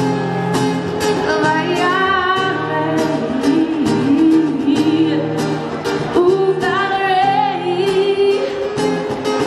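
A woman singing live into a microphone, accompanied by guitar; she holds long notes with vibrato over steady chords.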